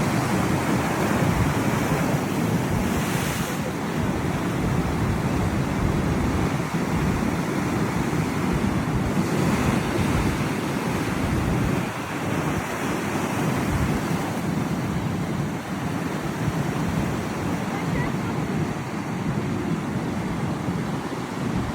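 Atlantic surf breaking and washing ashore in a continuous, steady rush, with wind buffeting the microphone.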